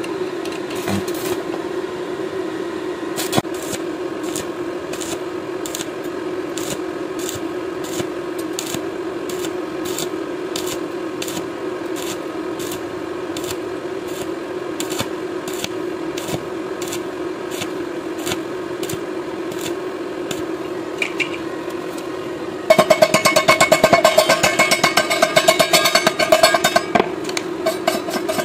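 Electric stick (arc) welding on thin steel angle iron: the arc crackles with sharp pops about twice a second over a steady hum. Near the end the arc stops and a wire brush scrubs the fresh weld loudly for about four seconds.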